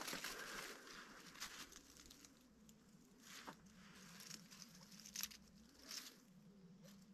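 Near silence with faint, scattered rustles and light ticks in dry leaf litter and twigs.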